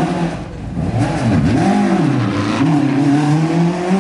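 Mk2 Ford Escort rally car's engine revving hard under throttle changes. Its pitch rises and falls several times in quick succession, then holds a steadier, slowly climbing note near the end.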